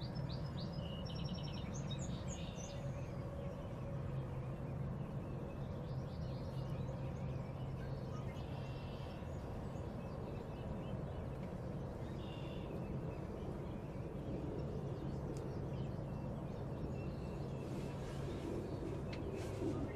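Songbirds chirping in short, scattered phrases, busiest in the first few seconds, over a steady low outdoor hum.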